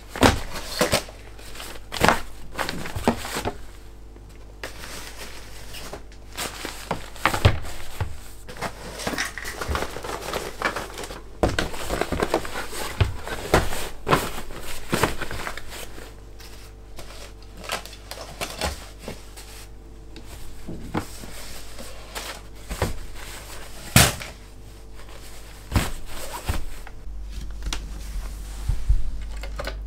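Fabric stuff sacks and rolled camping gear rustling and crinkling as they are packed and pressed down into a hard plastic storage box, with scattered knocks and clicks of items and hands against the box's plastic sides. One sharp knock stands out a little before the end.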